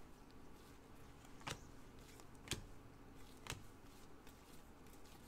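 Panini Revolution basketball trading cards handled by gloved hands: three soft flicks about a second apart as cards are slid off the stack one at a time, over a faint steady low hum.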